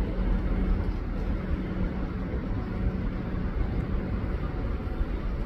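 A train at a station platform running with a steady low rumble and a steady low hum that fades out about three and a half seconds in.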